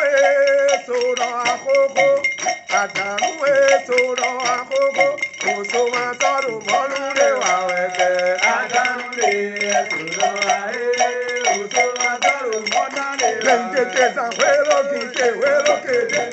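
Male voices singing a chant over a steady percussion beat.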